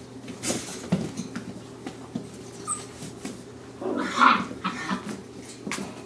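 Seven-week-old Chinook puppies play-fighting, with small growls and whimpers, and one louder cry about four seconds in.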